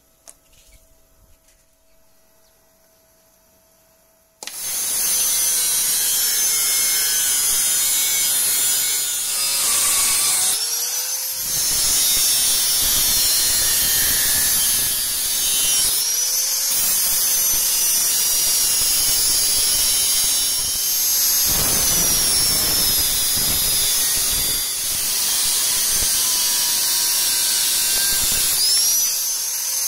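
Handheld angle grinder with a thin cutting disc cutting along the profile of a Böhler N695 steel knife blank clamped in a vise. It starts about four seconds in after near silence and then runs steadily with a high whine that sags and climbs back several times.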